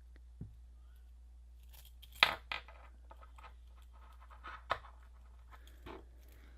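Small plastic toys and packaging being handled and set down on a table: a few sharp taps and short rustles, the loudest about two seconds in and another near five seconds.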